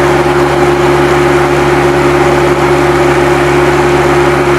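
Bobcat 763 skid-steer loader's diesel engine running at a steady speed, loud and unchanging.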